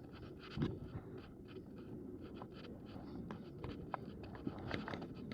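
Loaded wagon being pulled along a path: a steady rolling rumble from the wheels with irregular clicks and rattles from the gear, and a louder knock about half a second in.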